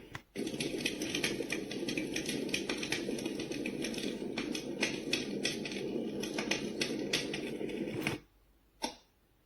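Sound machine of a Momcozy sunrise alarm clock playing a noise track full of irregular crackling clicks, which cuts off about eight seconds in. A single sharp tick follows near the end, the start of a track ticking about once a second.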